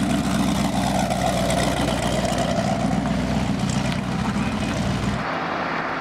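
A car engine running steadily at a constant pitch, a loud, low, even drone. It cuts off suddenly about five seconds in, leaving only a hiss.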